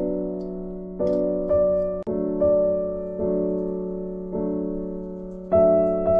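Slow background piano music, its chords struck one after another and left to ring and fade.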